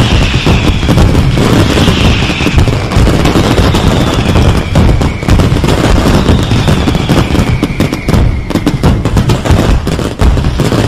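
Fireworks going off without pause: dense, rapid bangs and crackles overlapping one another.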